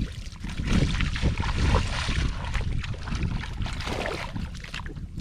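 Water splashing and sloshing in irregular bursts as hands and body move through shallow floodwater, over a low rumble of wind on the microphone.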